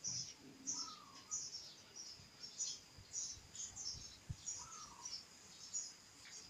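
Birds chirping outdoors: short high chirps repeating about twice a second, with a lower rising-and-falling call twice. A couple of faint low thuds sound in the middle.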